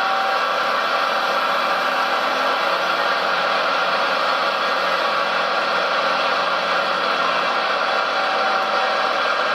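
Radio-controlled model construction vehicle running steadily: a constant engine-like drone with little bass and no changes in pitch or level.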